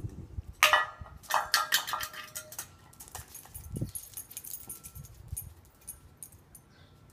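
A Welsh terrier's metal dog bowl, held in its mouth, clattering and scraping against brick paving in a loud ringing burst from about half a second to two and a half seconds in, followed by lighter clinks and knocks.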